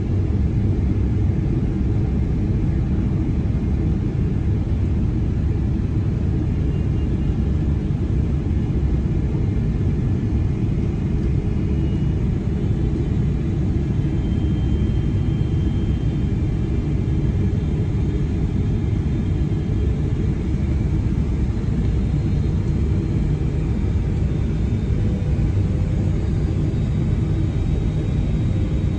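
Steady cabin noise inside a Boeing 777-300ER on final approach: a low, even rumble of airflow and the GE90-115B engines, heard from a window seat beside the engine, with faint high tones over it.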